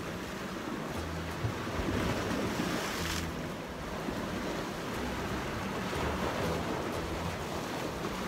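Sea surf washing against rocks, with wind gusting on the microphone. A louder hissing surge of the water comes about three seconds in.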